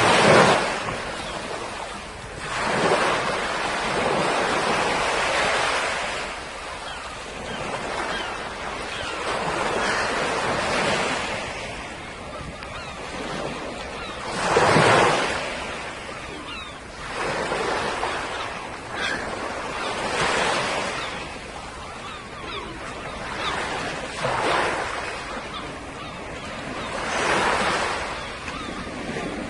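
Sea waves breaking and washing onto the shore, swelling and fading every few seconds.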